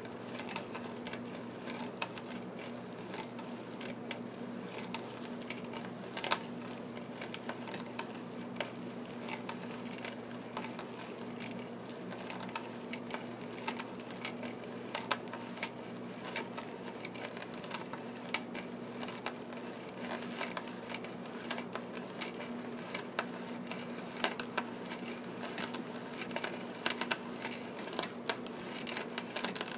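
Freshly file-sharpened ship auger bit boring into wood, its chips cutting and curling out with irregular small crackles and ticks.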